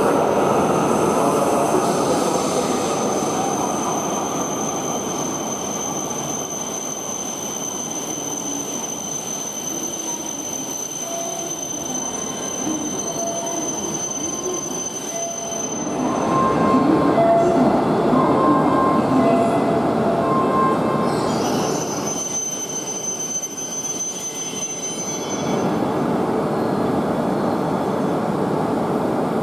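Shinkansen train moving along a station platform: a steady rumble with a thin high whine over it, and a short two-note beeping that repeats through the middle. The sound changes abruptly several times.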